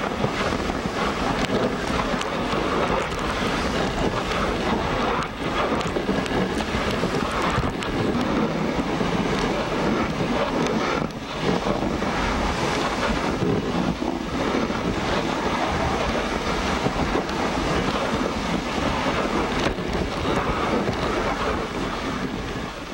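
Steady rushing noise of a dog sled running along a snow trail, with wind buffeting the microphone.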